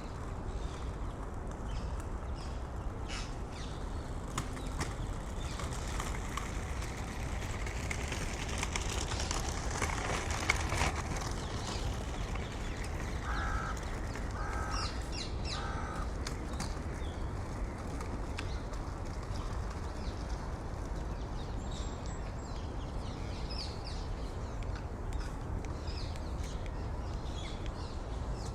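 City park ambience: a steady low rumble of distant traffic with birds calling over it. About halfway through come three short bird calls in a row, and scattered high chirps and small clicks follow.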